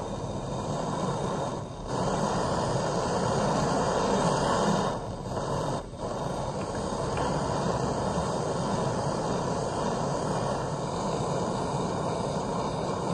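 Blowtorch flame burning steadily against an aluminium throttle body, heating it to soften the threadlocker on a stuck grub screw. The flame sound dips briefly twice, about two seconds in and again around five to six seconds in.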